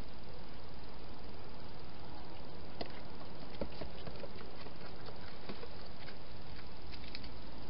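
Wild hedgehog at a clear plastic feeding box, its feeding and footsteps giving scattered faint clicks and scrapes over a steady hiss. The clicks start about three seconds in and continue as it turns and leaves the box.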